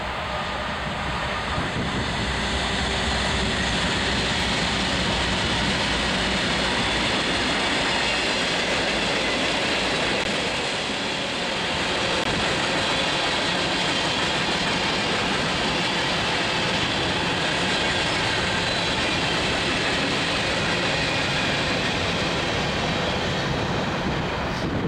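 Freight train passing: a steady noise of steel wheels rolling on the rails as the cars go by.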